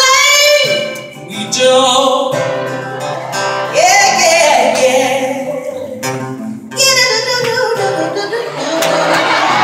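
A woman sings live with band accompaniment in a large hall, holding and bending long notes with vibrato. Audience cheering begins near the end.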